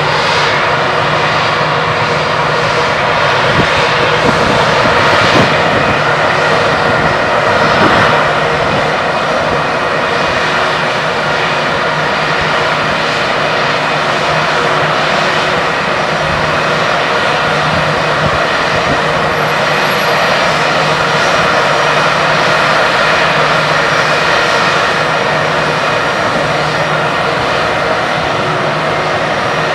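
Airbus A320-200 jet engines running at taxi idle: a steady rushing whine with a low hum underneath, as the airliner taxis in to the gate.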